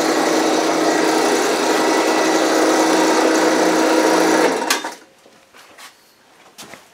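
The exoskeleton's hydraulic power unit running with a steady whine, then switched off about four and a half seconds in, stopping within half a second.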